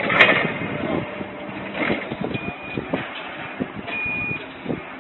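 Busy factory-floor noise: scattered metallic knocks and clanks over a steady background din, with two short high beeps about a second and a half apart near the middle.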